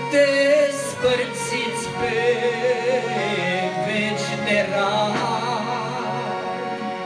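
Yamaha electronic keyboard playing the accompaniment of a Romanian religious song, with a sung voice wavering over it.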